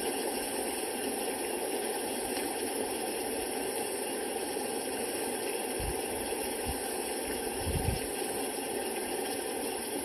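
Steady, even background hiss, with a few short low bumps about six to eight seconds in.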